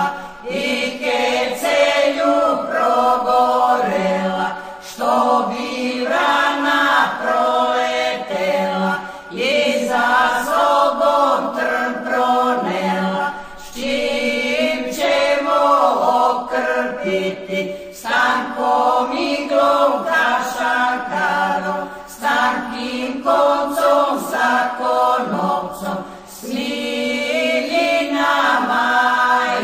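A vocal group singing a Serbian song a cappella, several voices in harmony, in long phrases with a short breath every few seconds.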